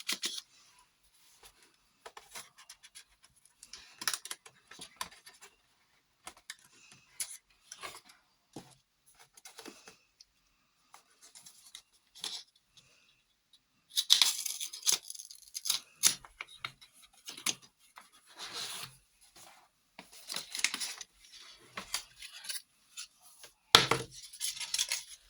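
Small suitcase-style storage boxes being handled: scattered scrapes, rustles and light clicks as the flip latch and carry handle are worked, with a busier stretch about halfway through and one louder knock near the end.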